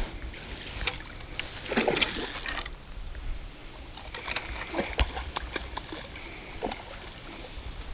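A small hooked carp splashing and thrashing at the surface of shallow water as it is brought in to a landing net, in irregular splashes with a busier stretch about two seconds in.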